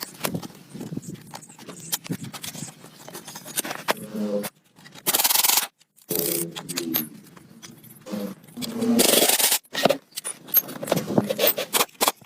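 Scraping and rubbing on corroded metal parts, in short, abruptly cut bursts with occasional brief squeals.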